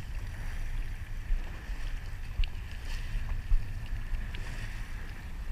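Wind buffeting the microphone in an uneven low rumble, over the hiss of small waves lapping against a kayak hull.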